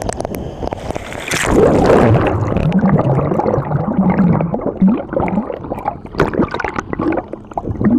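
A splash about a second in as the camera plunges under the sea surface, followed by muffled underwater gurgling and sloshing of seawater over the microphone.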